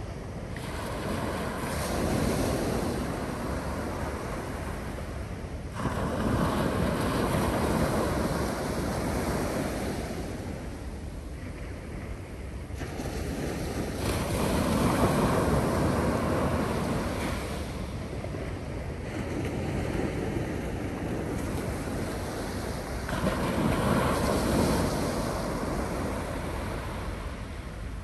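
North Sea surf breaking and washing up the beach, four waves in turn swelling up and fading away.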